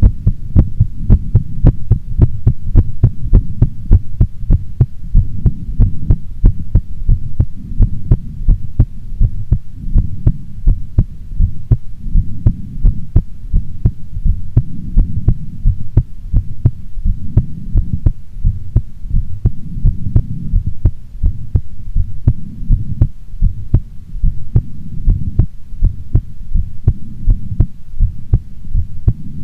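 A woman's heartbeat, beating steadily and regularly over a low rumble.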